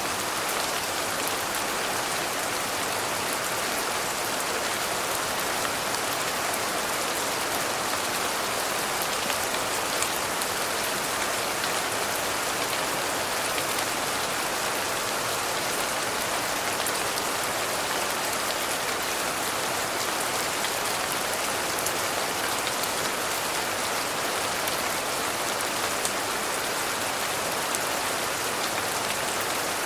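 Steady rain falling, an even, unbroken hiss of drops that does not change in strength.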